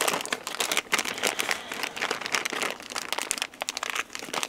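Small clear plastic bag crinkling in the hands as it is opened and handled, a steady stream of irregular crackles.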